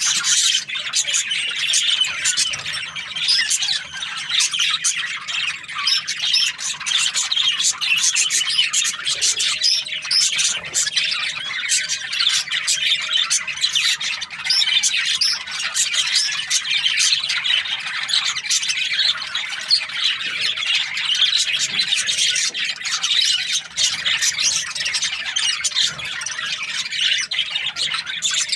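A group of budgerigars chattering without a break: a dense mix of chirps, warbles and squawks from many birds at once.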